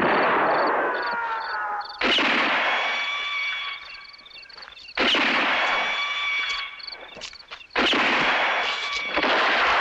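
Gunshot and bullet-ricochet sound effects: a series of sharp cracks two to three seconds apart, each trailing off in a hissing, whining decay.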